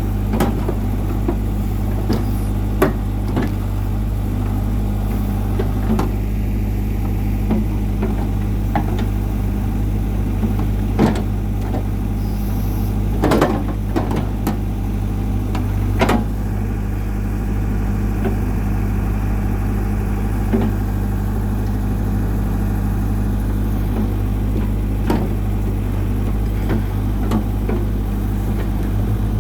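New Holland LB75 backhoe's diesel engine running steadily, with scattered short knocks and clanks over it, several close together around the middle.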